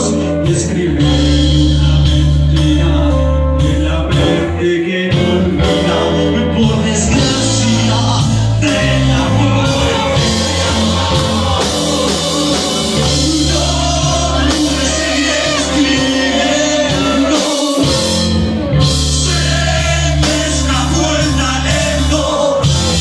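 Live rock band playing loudly: electric guitars, bass guitar and drum kit, with a male singer at the microphone.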